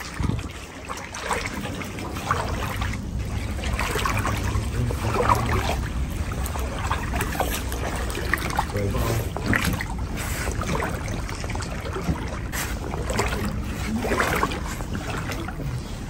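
Water trickling and lapping, with irregular small splashes.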